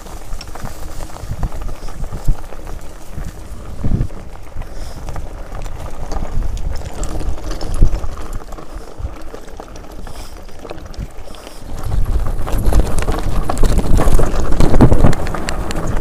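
Enduro mountain bike rattling down a loose, rocky trail: tyres rolling over stones and the bike knocking and clattering at each bump over a low rumble. It gets louder and rougher from about twelve seconds in.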